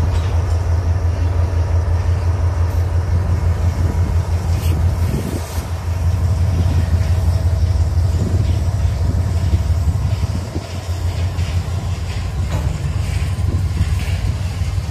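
Freight train passing slowly: a diesel locomotive followed by freight cars rolling on the rails, with a steady low rumble.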